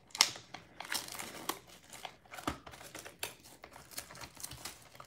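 Clear plastic shrink wrap being peeled and torn off a sealed trading card box, crinkling and crackling in quick irregular snaps, the sharpest one just as it begins.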